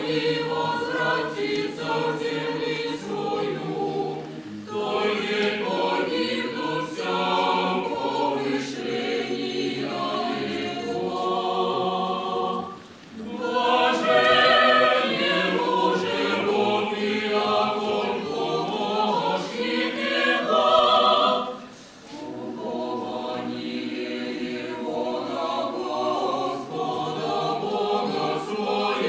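A choir singing, phrase after phrase, with brief breaths between phrases about thirteen and twenty-two seconds in.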